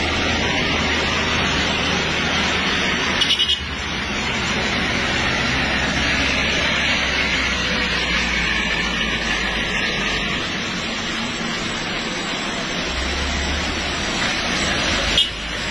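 Traffic on a rain-soaked road: a steady hiss of rain and wet tyres over low engine noise, with a burst of four quick beeps about three seconds in.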